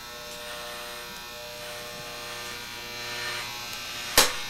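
Electric hair clippers buzzing steadily as they shave a scalp down close. A sharp click near the end.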